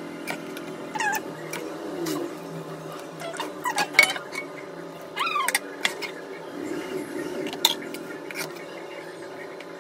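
A steel ladle clinking and scraping against a steel plate and a wok as cooked Maggi noodles are dished out. There are sharp metallic clinks, the loudest about four seconds in, and a few short squeaky glides.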